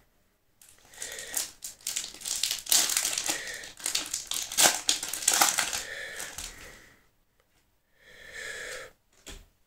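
Foil Yu-Gi-Oh booster pack wrapper crinkling and crackling as it is torn and pulled open, in dense bursts for about six seconds, then a shorter, softer rustle near the end.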